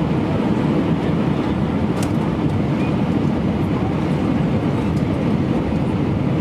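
Steady low rumble inside an Airbus A319's cabin, the airliner's engine and airflow noise, with a few faint ticks.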